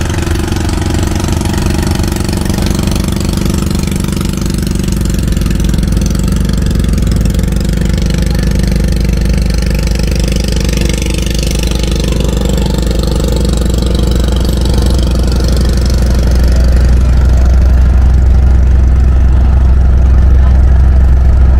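Engine of a large wooden river taxi boat running with a steady low hum, growing louder about three-quarters of the way through as the boat gets under way again.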